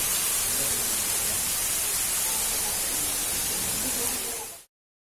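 Steady hissing rush of a waterfall, which fades quickly and cuts off about four and a half seconds in.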